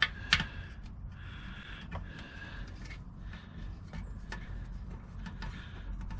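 Light metal clicks and ticks as small transmission pan bolts are handled and started by hand: two sharp clicks right at the start, then scattered fainter ticks over a steady low hum.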